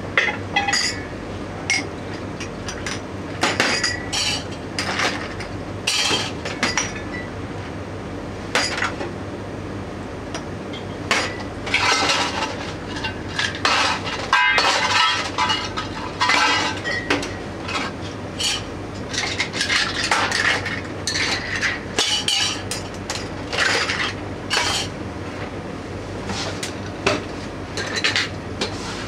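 Glasses and dishware clinking and clattering, many short knocks and clinks, as glassware is washed and handled at a bar sink, over a steady low hum.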